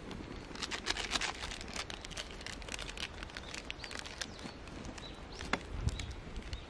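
Wood fire crackling under a pot, with scattered sharp pops and clicks, thickest about a second in. Birds chirp faintly now and then.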